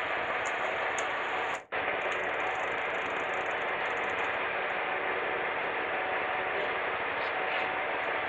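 Steady rushing noise of a small boat at sea, engine and wind on the microphone, with a faint steady whine. It drops out abruptly for a split second about one and a half seconds in.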